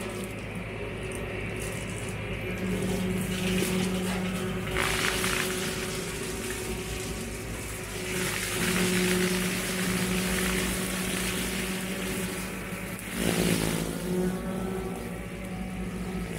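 Massey Ferguson 4707 tractor's diesel engine running steadily under load while its PTO-driven Baumalight CP572 brush cutter spins and shreds brush. Louder rushes of crashing, chewing noise come as it bites into the growth: about three seconds in, again from about eight to eleven seconds, and briefly near the end.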